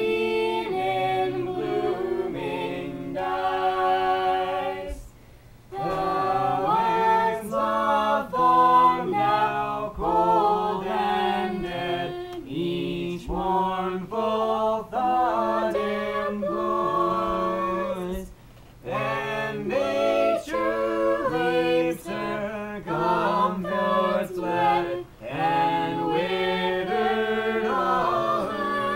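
A small mixed group of men and women singing a shape-note hymn tune in parts, unaccompanied, in long phrases with short breaks between them.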